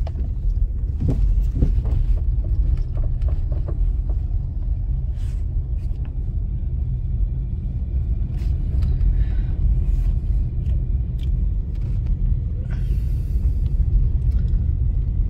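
Steady low rumble of a car driving, heard from inside the cabin, with scattered small clicks and rattles.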